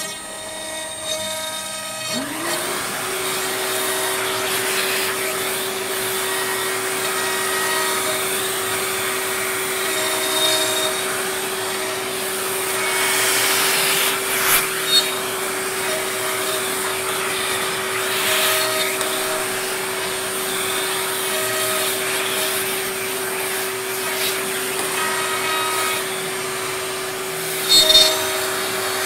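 A vacuum cleaner starts up about two seconds in, rising quickly to a steady whine that holds through the rest, while a DIY CNC router engraves letters into a wooden board with shorter machine tones coming and going above it.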